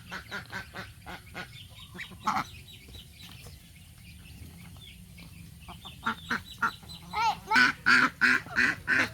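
Ducks quacking in quick runs of short calls. The calls drop away for a few seconds mid-way, then come back louder from about six seconds in.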